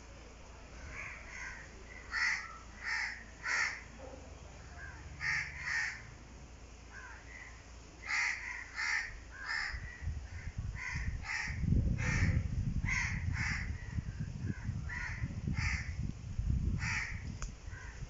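Crows cawing over and over, short harsh calls often two or three in quick succession. From about ten seconds in, a low rumble runs underneath.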